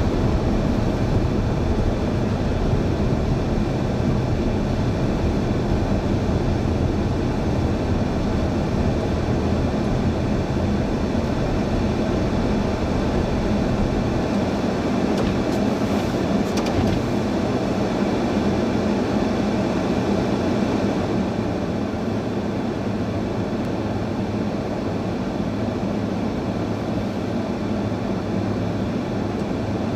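Steady vehicle running noise, a continuous rumble and hiss. The deepest part of the rumble eases about halfway through.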